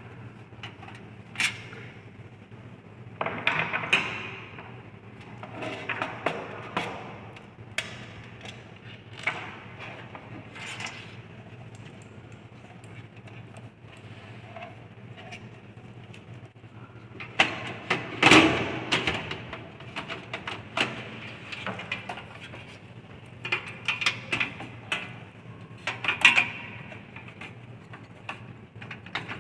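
Irregular clicks, knocks and scraping of computer parts being handled as a desktop system unit is taken apart, with the loudest clatter about eighteen seconds in, over a low steady hum.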